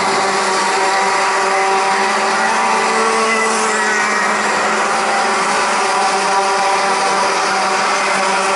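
Several Rotax Max 125cc single-cylinder two-stroke kart engines racing together, their buzzing pitches overlapping and shifting slightly as the karts run through the corners.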